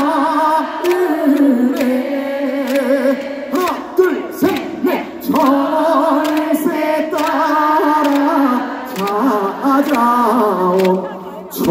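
A male trot singer sings unaccompanied through a microphone and PA, with a wide vibrato on held notes, in phrases broken by short breaths. Scattered sharp claps sound through the singing.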